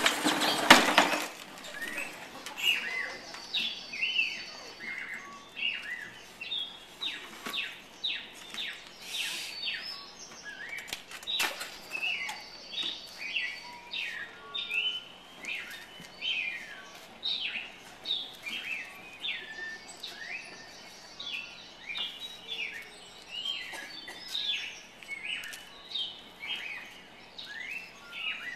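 A loud noisy burst in the first second, then a rapid, irregular run of short high bird-like chirps, each falling in pitch, about one or two a second, with now and then a higher buzzing tone above them.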